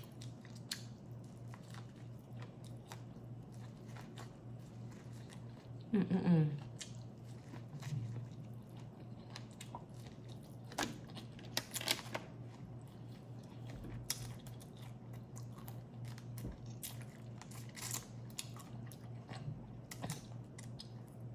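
Close-up eating of boiled crawfish: quiet chewing with scattered small clicks and cracks of shells being broken and peeled, over a steady low hum. About six seconds in there is a short falling vocal sound, like a sigh or hum.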